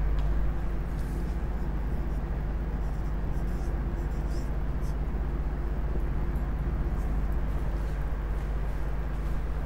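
Steady low background hum throughout, with faint, short scratching strokes of a marker writing on a whiteboard.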